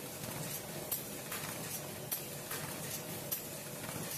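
Pack-Smart pin mailer inserting machine running, a steady hiss of machinery with a short sharp hiss about every 1.2 seconds, each followed by a fainter one, as its air-driven inserting head cycles.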